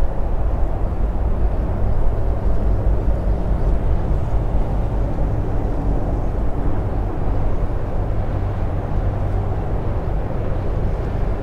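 Steady low rumble of wind on the microphone, with no distinct events.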